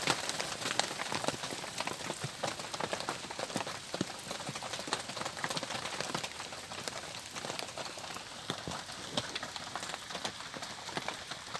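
Rain falling steadily: a dense patter of individual drops over a constant hiss.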